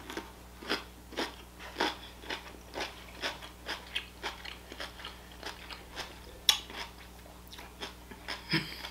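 Close-miked chewing of a crunchy pickle: short wet crunches about two a second, with one sharper crunch about six and a half seconds in, over a faint steady low hum.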